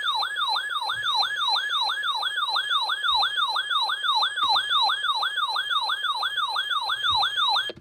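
Electronic yelp siren alarm of a weather alert radio sounding for a severe thunderstorm warning, its pitch swooping down and back up about three times a second. It cuts off abruptly near the end.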